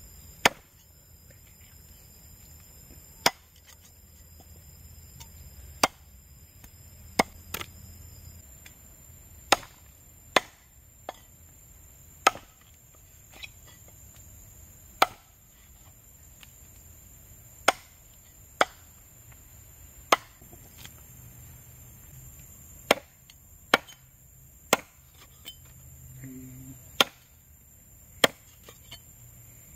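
Meat cleaver chopping a snake into pieces on a round wooden chopping block: single sharp chops about every one to three seconds.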